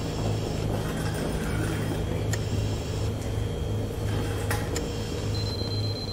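Low, slightly pulsing electronic hum from a music video's intro soundtrack. Two sharp clicks come partway through, and a thin, high, steady beep starts near the end.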